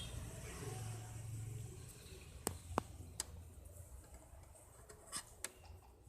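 Faint room tone broken by a few sharp clicks or taps: two close together about two and a half seconds in, one just after three seconds, and two more near the end.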